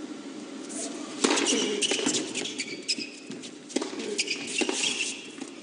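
Tennis rally on an indoor hard court: a serve struck about a second in, the loudest hit, then several more racquet strikes on the ball, with sneakers squeaking on the court between shots.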